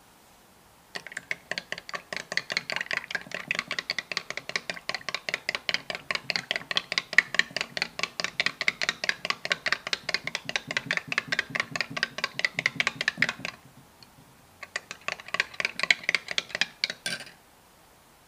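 Metal teaspoon stirring a drink in a glass tumbler, clinking rapidly against the glass about five times a second. The clinking stops about 13 seconds in, then picks up again for a couple of seconds before stopping.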